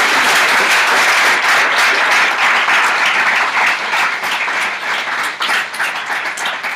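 Audience applauding, loud at first and then thinning out to scattered claps near the end.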